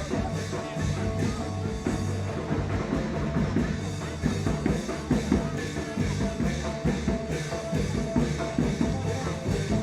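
Music with a steady drum beat and held low bass notes.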